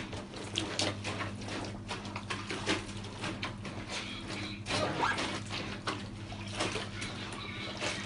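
Wet laundry being trodden underfoot in a plastic basin of soapy water: irregular squelching and splashing, over a steady low hum.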